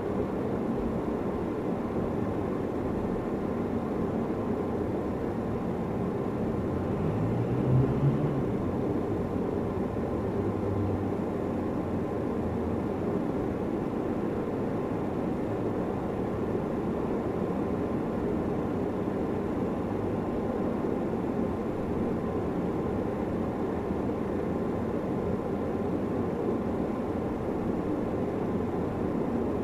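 Steady low rumbling background noise, with a brief louder low hum about eight seconds in.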